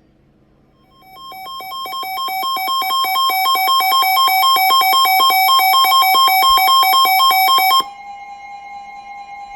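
Weather radio alert alarm: fast beeps alternating between two pitches, growing louder, starting about a second in. The beeping stops abruptly about seven seconds in, leaving a steady, quieter alert tone from the NOAA Weather Radio broadcast ahead of a Special Marine Warning.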